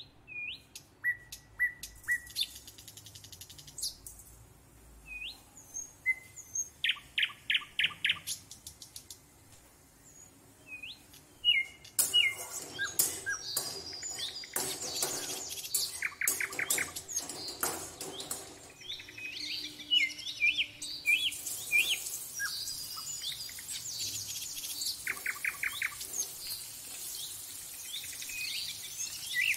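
Small birds chirping, with short rising and falling calls and rapid trills. About twelve seconds in, a crackling sizzle joins them as whole panch phoron seeds and a dried red chilli fry in hot mustard oil in a karahi.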